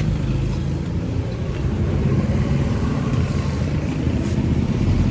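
A motor engine running steadily with a low, pulsing rumble.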